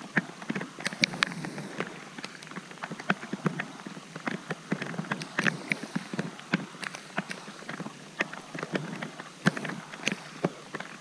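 Rain on open water, with individual drops ticking irregularly and sharply on a plastic kayak over a steady hiss.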